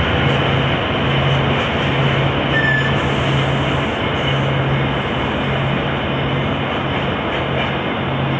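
Amtrak passenger cars rolling past at close range on a departing train: a steady, loud rush of steel wheels on the rails, under a low hum that breaks off briefly about once a second.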